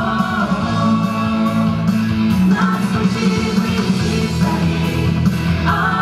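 A mixed vocal ensemble of male and female voices singing a pop-rock song together in unison and harmony, holding long notes, over an instrumental accompaniment with a steady beat.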